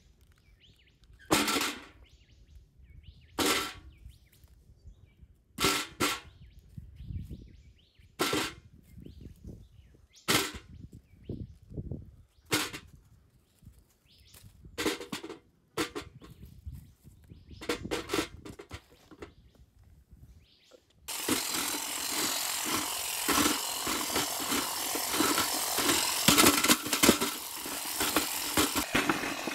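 Cabbage pieces dropped one at a time into an empty galvanised metal bucket, each landing with a sharp knock about every two seconds. About two-thirds of the way through, a handheld power tool starts suddenly, spinning a rod down in the bucket with a loud, continuous rattling clatter as it chops the cabbage.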